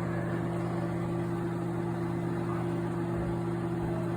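Microwave oven running: a steady electrical hum made of several low tones, over an even whir of fan noise.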